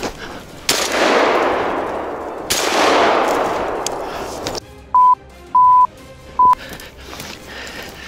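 Two shotgun shots about two seconds apart, each blast echoing away through the woods. Then three short, loud beeps at one steady high pitch.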